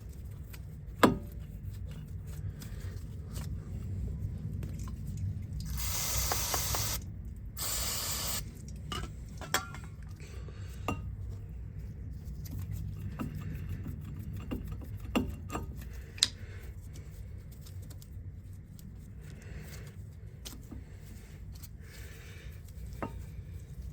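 Two hisses of an aerosol spray, each about a second long, about six and eight seconds in, among scattered small clicks and knocks of metal parts being handled.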